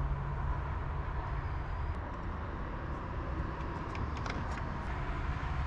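Steady low rumble of truck engines running, with a few faint clicks about four seconds in as a tail-light bulb is worked in its socket.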